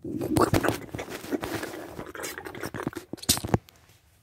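Close handling noise as a phone camera and plastic toy figures are moved about a toy set: rubbing and scraping with a run of sharp knocks. It starts suddenly and stops about three and a half seconds in.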